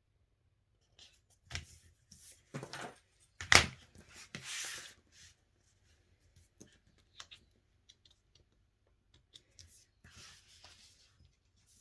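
Pieces of card being handled and pressed down on a work surface: scattered rustles, slides and light clicks, with one sharp knock about three and a half seconds in, the loudest sound, followed by a short rustle.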